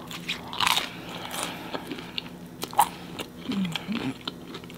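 A person biting and chewing crispy homemade pizza crust, with a scatter of sharp crunches, the loudest about a second in and again near three seconds.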